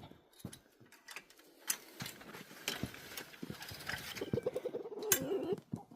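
Chicken coop being opened: a run of knocks, clicks and scrabbling, with a chicken's low wavering trill for over a second from about four seconds in.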